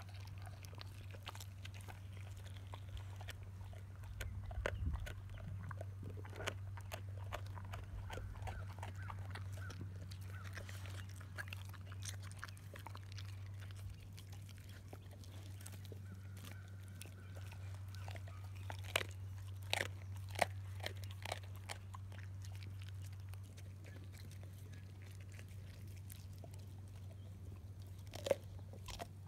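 Dogs chewing raw salmon heads: wet biting and irregular crunches of fish bone and cartilage, with a run of louder crunches about two-thirds of the way in and again near the end, over a steady low hum.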